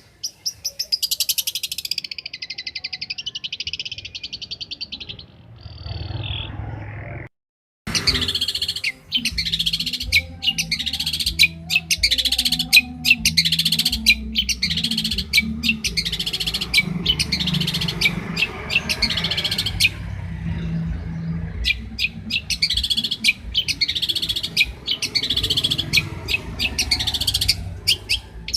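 Long-tailed shrike (cendet) singing: a fast, buzzy chattering trill for about six seconds, a brief break, then a long run of sharp, rapidly repeated notes.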